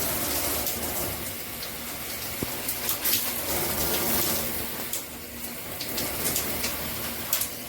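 Water spraying from a 2-in-1 handheld shower head, a steady hiss of running water, with a few light clicks.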